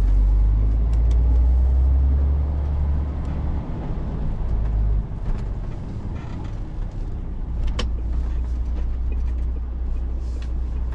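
MAN HGV tractor unit's diesel engine and cab rumble heard from inside the cab while driving: a deep steady drone that eases off about five seconds in as the truck slows for a junction. A single sharp click near the end.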